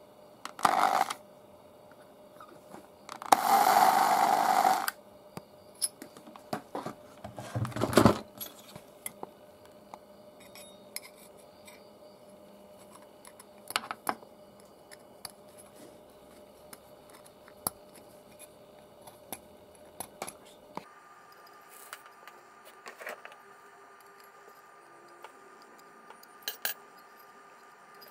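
Irregular light metallic clinks and taps as small steel parts are handled and set down on a hard workbench. About three seconds in there is a louder rushing noise lasting about a second and a half, and a sharp knock near the eight-second mark.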